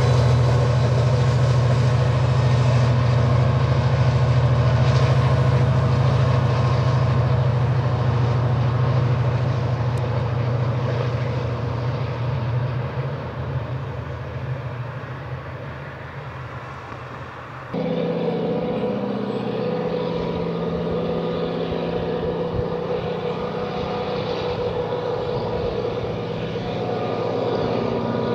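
Diesel train running, with a steady low engine drone that slowly fades. About eighteen seconds in it cuts abruptly to another steady diesel engine sound with a higher hum.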